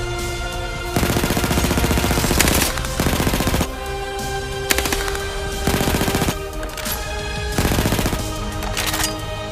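About five bursts of rapid-fire shots, the first and longest about a second in, over background music.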